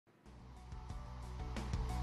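Music fading in: a steady low bass with sharp beats entering about a second in.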